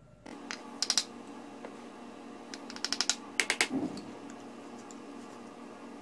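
Quick clusters of sharp clicks over a steady low hum: a few about a second in, and more around three seconds in.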